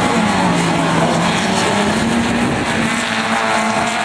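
Several autocross race car engines running hard on a dirt track, their pitches rising and falling as the drivers rev and lift off.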